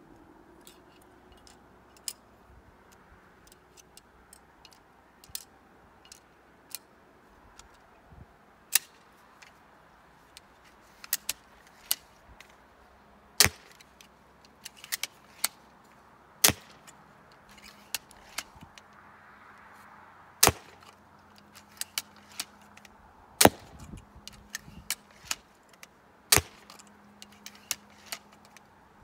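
Cobra pistol crossbow being handled, cocked and shot: a run of sharp clicks and snaps, with louder snaps about every three seconds through the second half.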